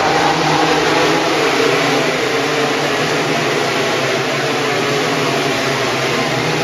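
MotoGP racing motorcycles, 1000 cc four-cylinder prototypes, passing one after another at speed on the straight. Their engines blend into one loud, continuous drone that holds steady throughout.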